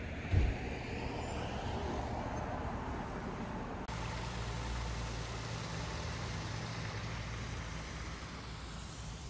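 Street ambience with steady road traffic noise from passing cars, and one short low thump about half a second in. About four seconds in the background shifts to a steadier low rumble.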